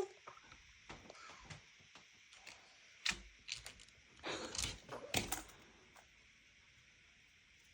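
Baby's mouth noises: faint smacks, then a few short breathy, spluttering bursts about three seconds in and again around four to five seconds in, the sound of a baby blowing and spitting saliva.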